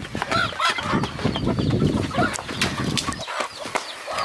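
Chickens clucking and squawking in short, repeated calls, with scuffling footsteps of people running on dry dirt.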